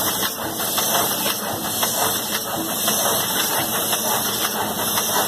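Automatic CD printing machine running: a steady mechanical hiss with a rapid, irregular light clatter of moving parts.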